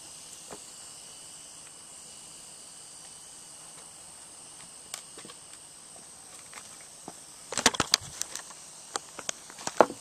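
Steady high-pitched insect drone, with a cluster of clicks and knocks in the last two and a half seconds.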